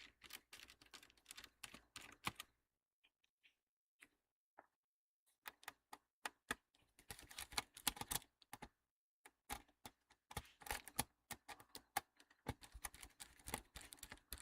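Quick, light clicks and taps of a small screwdriver and hands working screws out of a laptop's plastic case. The clicks come in dense runs, with a pause of a couple of seconds early on.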